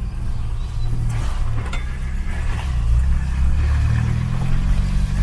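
Volkswagen Kombi camper van driving along, its engine running steadily with road noise, and a couple of light knocks about a second and a half in.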